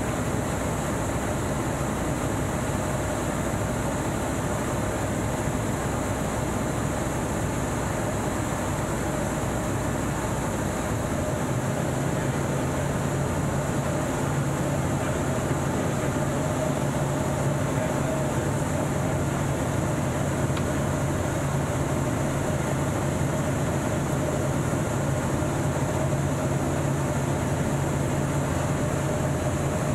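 Light aircraft's piston engine and propeller droning steadily, heard inside the cockpit. About a third of the way in the tone of the drone shifts as power is reduced, with engine speed falling from about 2,600 to 2,150 rpm.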